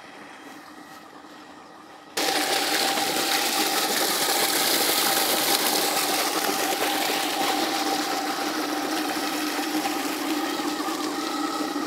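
Irrigation pump running with a steady hum and a loud rushing hiss, which comes in suddenly about two seconds in. Before that the same steady hum is faint.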